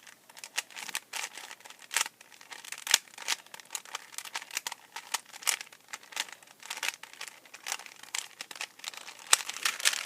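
Rubik's cube being scrambled quickly by hand: rapid, irregular plastic clicks and rattles as the layers are twisted.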